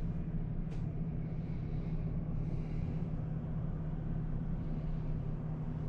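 A steady low mechanical hum with a constant low tone under an even background noise, and a faint tick about a second in.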